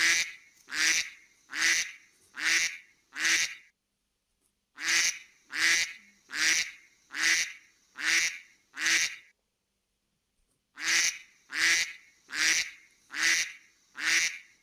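A duck quacking: series of five or six evenly spaced quacks, a little under one a second, separated by pauses of about a second and a half, each series alike.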